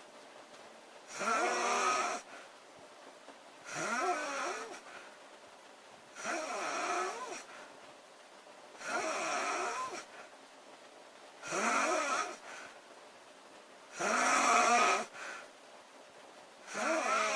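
A woman snoring in her sleep, about seven snores in a steady rhythm, one every two and a half seconds or so. Each snore lasts about a second and has a pitch that rises and falls.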